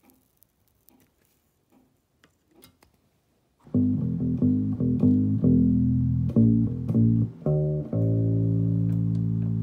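Faint clicks, then about three and a half seconds in an electric bass guitar played through the Crate B80XL bass amp: a quick run of plucked notes, then a long sustained note from about eight seconds in. It is a playing test of the amp after its input jack was re-soldered.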